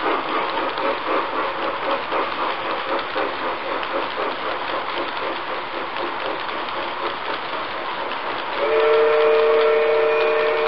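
G-scale model freight train rolling on its track, the cars' wheels making a steady rhythmic clatter. Near the end a model steam whistle, a chord of several tones, sounds steadily for a couple of seconds.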